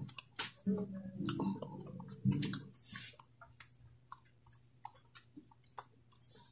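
Close-miked chewing of a mouthful of rice, with scattered sharp mouth clicks that thin out after about two and a half seconds.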